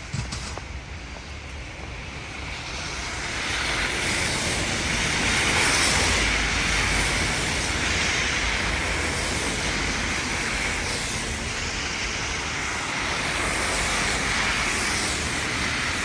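Steady rushing vehicle noise with a low rumble underneath, swelling about three seconds in and then holding.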